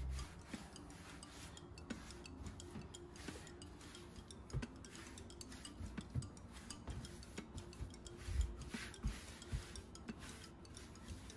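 Hands rolling a piece of pretzel dough back and forth into a rope on a floured countertop: soft rubbing with scattered light taps and knocks, the loudest about eight seconds in.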